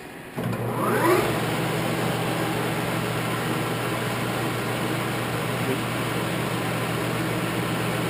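American Machine Tool Turnmaster 13 x 40 engine lathe starting up in its high gear range. The spindle and headstock gearing spin up with a rising whine over about a second, then run on with a steady hum at about 930 rpm.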